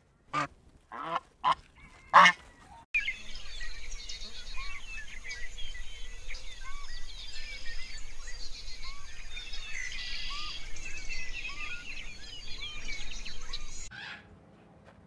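Four short honking calls from waterfowl in the first few seconds, then a sudden switch to a dense chorus of many small chirping calls that cuts off near the end.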